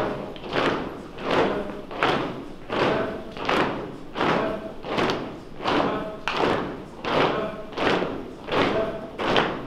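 Steady, evenly spaced thuds, about three every two seconds, each echoing in a large hall.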